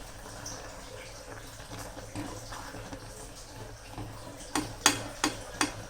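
A metal cooking utensil knocking and clinking against a pan several times in the second half, over a faint steady low hum.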